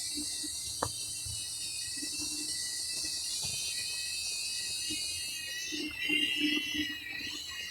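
Steady high-pitched insect chorus, crickets or cicadas, with a single sharp click about a second in and a brief louder, wavering call near the end.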